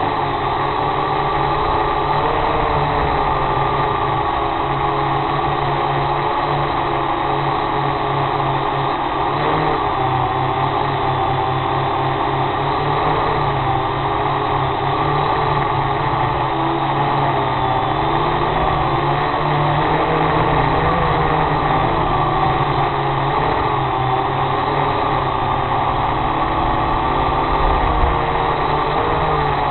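A drone's motors and propellers droning steadily as heard from its onboard camera, the pitch wavering up and down as it manoeuvres.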